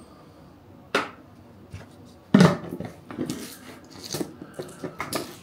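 Kitchen handling sounds while whey protein powder is measured out: a sharp tap about a second in, a louder knock of a container or utensil set down a little later, then a run of small clinks and scrapes.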